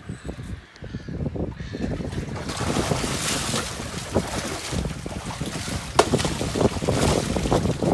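Water rushing and splashing along the side of a moving boat, with wind buffeting the microphone; it grows louder about two and a half seconds in. One sharp knock stands out about six seconds in.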